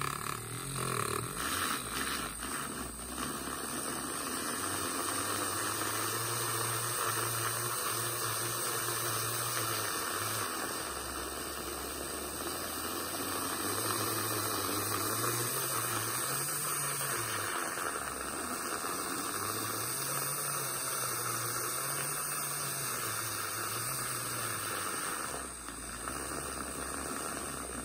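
Battery-powered IKEA handheld milk frother whisking milk into foam: a steady motor hum with a frothy hiss, its pitch rising and falling slightly as the whisk moves through the milk.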